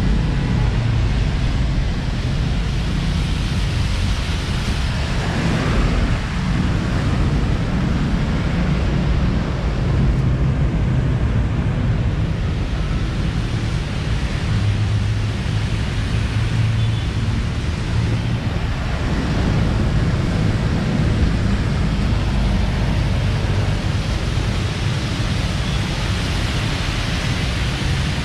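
Street traffic on a wet road: a steady low rumble of engines under a constant hiss of tyres and rain-wet ambience, with a vehicle passing about five seconds in.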